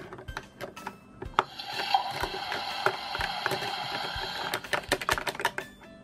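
Plastic toy cookware clicking and scraping against a plastic toy kitchen sink, in many short sharp clicks. In the middle, for about three seconds, the toy's speaker plays a steady tinny hiss-like sound effect.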